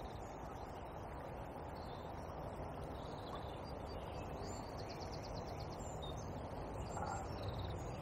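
Steady rushing of a small river, with faint birds calling over it: scattered short chirps and a quick rattling trill about five seconds in.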